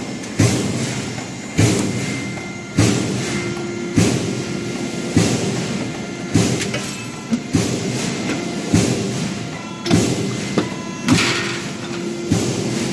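Heavy thumps repeating evenly about once every 1.2 seconds, each dying away before the next, with faint steady tones underneath.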